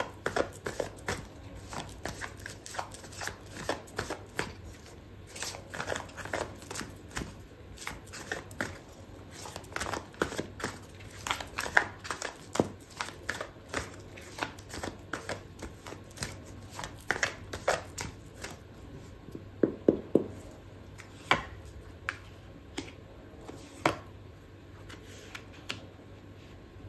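A deck of tarot cards being shuffled by hand, with many quick, irregular card snaps and taps, then cards dealt out and laid face down, with a few louder slaps in the second half.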